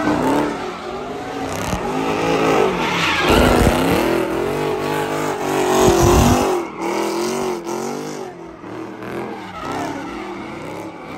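A car doing donuts: its engine revving hard in repeated rises and falls of pitch while the rear tyres spin and squeal on the pavement, a little quieter in the second half.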